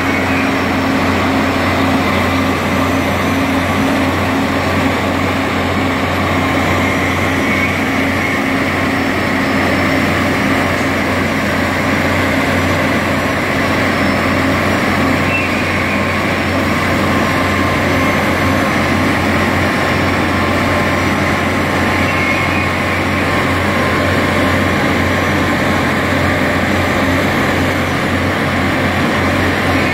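SUZ 500 track-renewal train's engines and machinery running with a steady, loud drone: a constant low hum with a higher steady tone over it.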